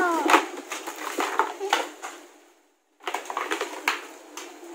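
Plastic bags crinkling and plastic toy kitchen pieces clicking and clattering as they are handled and unpacked, with a child's voice falling in pitch and trailing off at the very start. The sound cuts out completely for about half a second a little before the middle.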